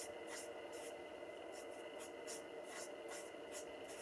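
Alcohol marker tip stroking over card as a stamped image is coloured in: faint, quick scratchy strokes about twice a second, over a steady low hum.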